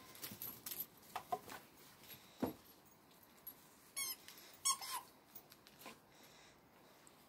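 A squeaky rubber toy ball squeaking in short, high squeaks as a Jack Russell terrier mouths it, mostly in a cluster about four to five seconds in. There are a few small clicks, and near the middle a single tone slides down in pitch.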